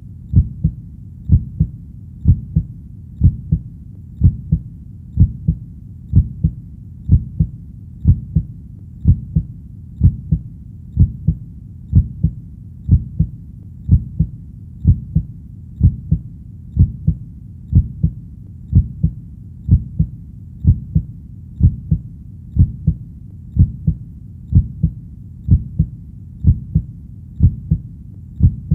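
Heartbeat: a steady, low double thump ('lub-dub') repeating about once a second, slightly over 60 beats a minute, with a low steady rumble between beats.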